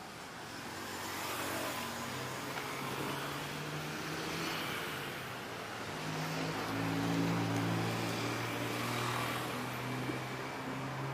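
Traffic on a busy multi-lane city road: motorbikes and cars passing, with engine hum that swells to its loudest about seven seconds in.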